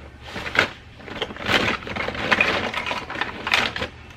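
Hands rummaging through a box of plastic kids' toys, the toys clattering and knocking against each other, busiest in the middle.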